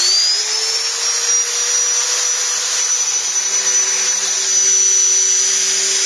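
Wood router on a homemade CNC machine, just switched on: its motor whine climbs to full speed within about the first second, then runs steadily and loud.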